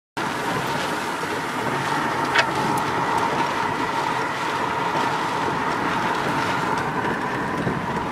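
Steady car cabin noise from a moving vehicle, road and engine running under a faint steady hum. It cuts in abruptly just after the start, with a sharp click about two and a half seconds in.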